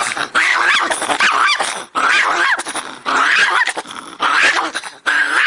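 Pinscher barking fiercely: a near-continuous run of rapid barks in several long bursts, with short breaks about two and four seconds in.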